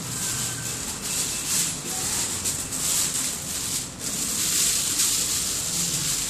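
Plastic bag rustling and crinkling as it is pulled and wrapped around a leg as a mock cast.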